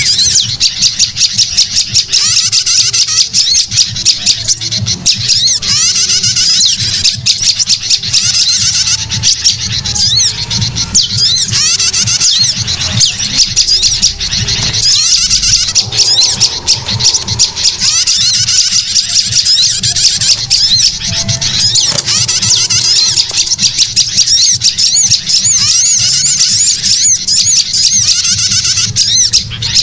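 Bird-lure recording of small songbirds chirping and trilling continuously and rapidly, high-pitched and loud, many notes crowding one another.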